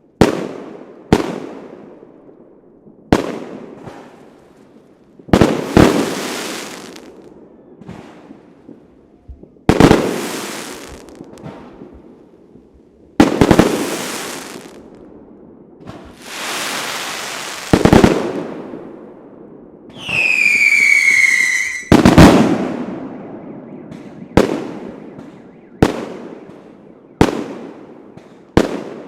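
Fireworks display: a series of shell bursts, each sharp bang followed by a long echoing tail, spaced roughly one to four seconds apart. One burst is led in by a rising hiss, and about twenty seconds in a whistling firework gives a falling whistle lasting about two seconds.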